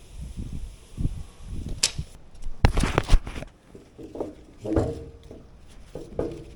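Irregular knocks and clunks, as of tools and materials being handled, with a cluster of sharp knocks about two and a half to three seconds in.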